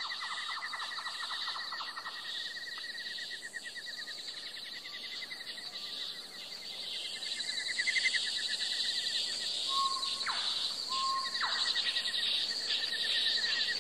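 Forest night-chorus ambience: insects trilling in a steady, fast-pulsing chorus, with a few short bird calls about ten seconds in.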